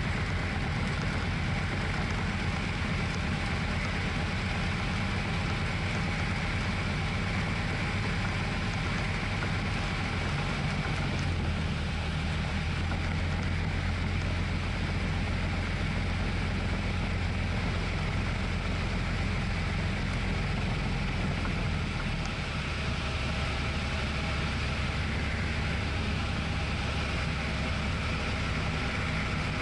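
Cabin drone of a Tecnam P2002 Sierra's Rotax 912 flat-four engine and propeller, with airflow noise, on approach in the landing pattern. Its note shifts about eleven seconds in and again about twenty-two seconds in.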